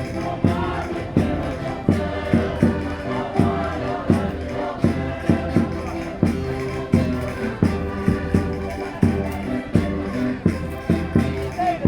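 Concertinas playing a Minho folk dance tune over a steady thumping beat about every two-thirds of a second, with voices singing along.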